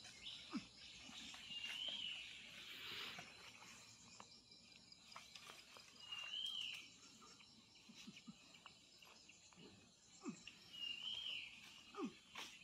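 Faint sound of a fighting bull goring and digging into a loose dirt bank with its horns, in scattered soft scuffs and thuds. A bird calls a short rising-and-falling chirp three times, a few seconds apart.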